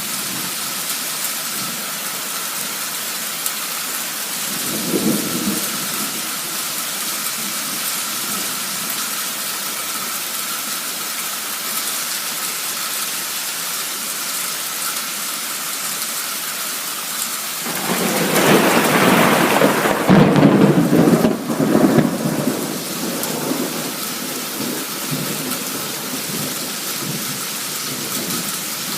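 Torrential summer downpour hissing steadily, with thunder: a short low rumble about five seconds in, then a loud rolling peal about two-thirds of the way through that is the loudest sound and slowly dies away.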